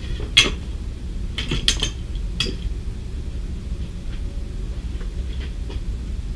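Scattered sharp clicks and clinks of small hard objects being handled: the loudest about half a second in, a quick cluster near one and a half seconds, then fainter ones, over a steady low rumble.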